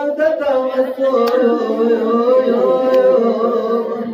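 A man's voice chanting an unaccompanied mourning lament (noha) for Abbas, with long held, wavering notes.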